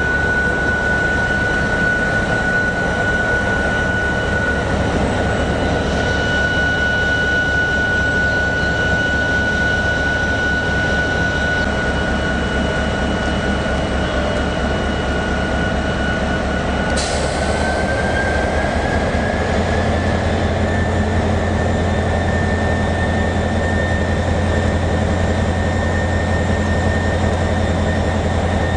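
Locomotive running steadily, with a low pulsing rumble and a high steady whine. A little over halfway through, the whine rises slightly in pitch and the low rumble steps up to a stronger note.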